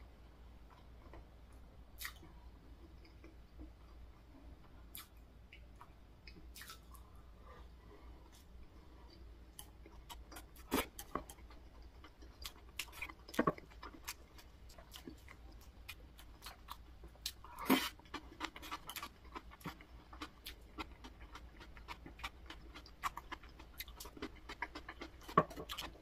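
A person eating: quiet chewing and biting with scattered sharp clicks, a handful of them louder in the second half.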